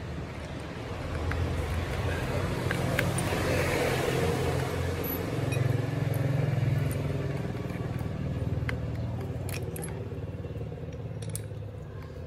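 A low, engine-like hum that swells over the first half and slowly fades, with scattered small metallic clicks from a drill chuck being turned by hand.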